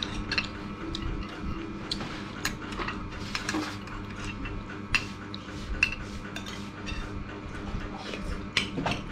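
Metal spoons clinking and scraping irregularly against ceramic bowls and plates during a meal, over a steady low hum.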